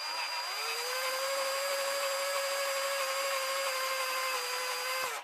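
Craftsman drill running at a steady speed, spinning a tap against an M8 bolt in a 3D-printed jig to cut the hobbed grip grooves for a filament extruder. The motor comes up to speed in the first second, holds a steady pitch, and stops just before the end.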